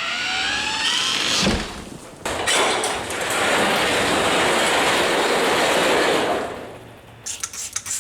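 Aerosol spray can hissing steadily for about four seconds, after a short rising squeal; near the end a fast rattling begins, like the can being shaken.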